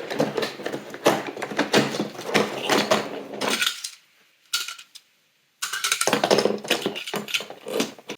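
Small die-cast toy cars and their packaging being handled: quick, irregular clicking and rattling, which stops for about two seconds near the middle and then starts again.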